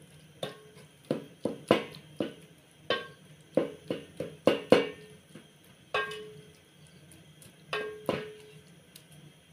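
Wooden spoon knocking against the side of a metal cooking pot while stirring food, each knock with a short ring. About a dozen irregular knocks come in the first five seconds, then two more, further apart, near six and eight seconds.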